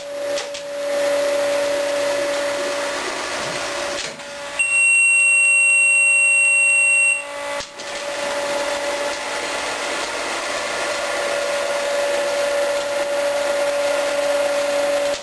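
A vacuum lifter's vacuum generator running with a steady hum and a rushing noise. About four and a half seconds in, the hum drops away and a loud, high steady beep sounds for about two and a half seconds before the running noise returns.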